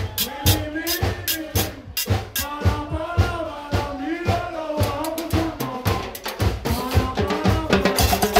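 Live carnival percussion band: drums struck with sticks in a steady driving beat, with metal hand percussion and a rising-and-falling pitched line over the drumming.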